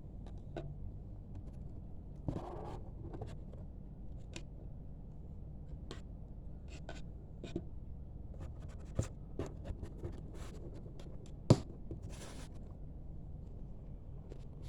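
Items being handled on a table: scattered light clicks and taps with a few short rustles, over a low steady hum, and one sharper click about eleven and a half seconds in.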